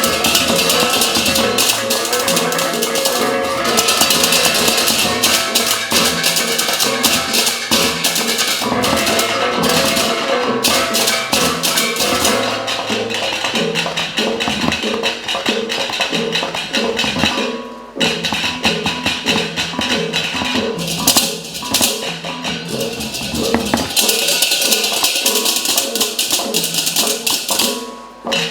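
Percussion-heavy ensemble music with a steady pulse, pitched instruments and bright rattling, shimmering high percussion. There is a short break about 18 seconds in and another near the end.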